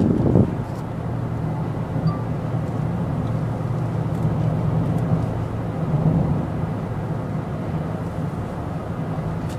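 Car interior noise while driving on a highway: a steady low rumble of engine and tyres on the road, heard from inside the cabin.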